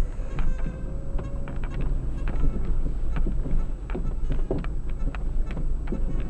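Vehicle running with a steady low rumble, with frequent irregular knocks and rattles as it drives over a rough track.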